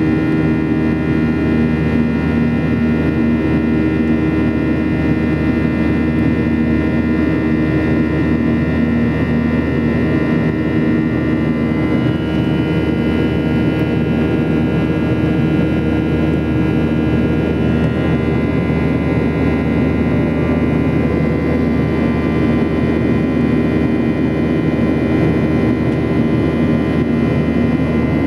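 Cabin noise of a Boeing 737-800 in flight: the steady drone of its jet engines and airflow, with several steady whining tones. About twelve seconds in, some of the higher tones step up slightly in pitch.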